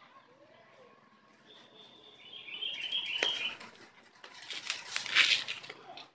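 Rustling and scraping noise, loudest about five seconds in, with a sharp click near the middle. A bird chirps in the background during the first half.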